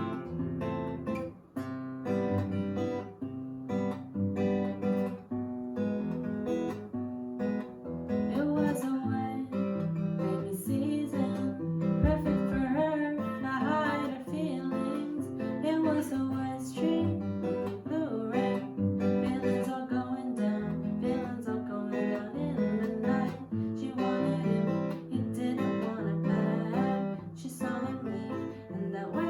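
Acoustic guitar strummed and picked, with a solo voice singing over it for stretches.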